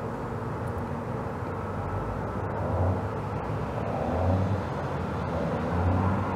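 Steady outdoor background rumble on the camera's microphone, swelling a little in low rumbles a few times.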